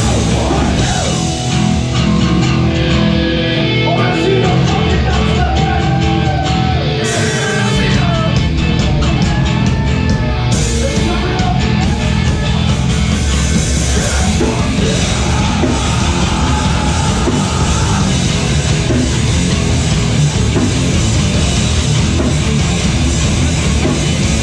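A metalcore band playing live and loud: distorted electric guitars and drums, with a vocalist yelling over them.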